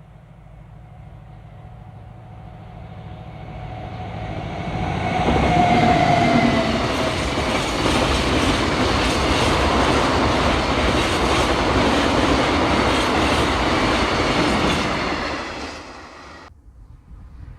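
Train passing at close range: it builds over about five seconds, with a whine that dips slightly in pitch as it draws level. Then comes a loud, steady rumble with regular wheel clatter over the rail joints for about ten seconds. It fades and then cuts off suddenly.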